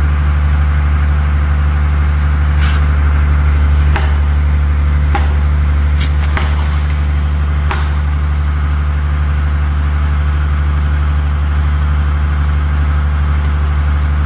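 An engine idling steadily with a low hum, with a handful of short sharp clicks or knocks between about three and eight seconds in.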